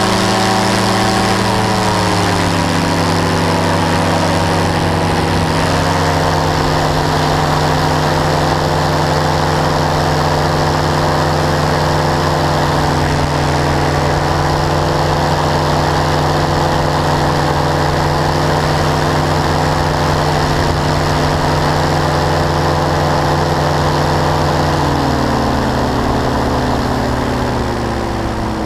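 Powered parachute's pusher engine and propeller running steadily in flight. The engine note dips slightly about two seconds in, then drops lower and a little quieter near the end as the throttle is eased back.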